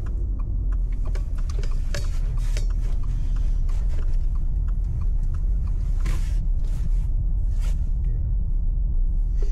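Steady low road and engine rumble of a car heard from inside the cabin while driving, with a few scattered sharp ticks.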